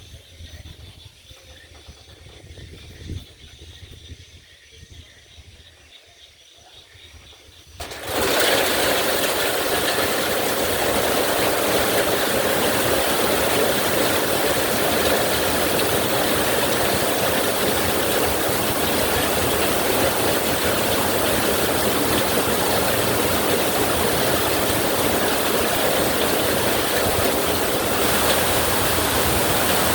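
Low rumbling of distant thunder over a quiet background with faint steady high tones. About eight seconds in, heavy rain cuts in suddenly as a loud, steady hiss that holds on.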